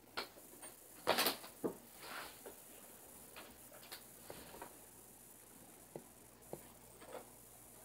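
Scattered light clicks and knocks of plastic DVD discs and a DVD case being handled, the loudest clatter about a second in.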